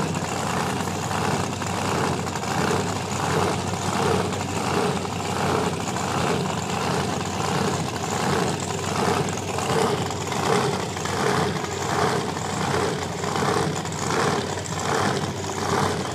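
Drag-race car engine idling, its sound swelling and fading in a regular pulse a little under twice a second.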